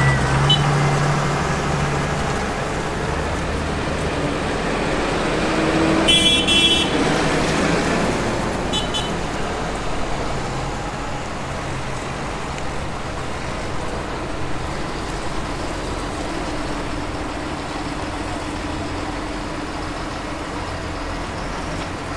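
Farm tractors' diesel engines idling steadily, a low drone. A horn sounds for about a second some six seconds in, with a shorter toot near nine seconds.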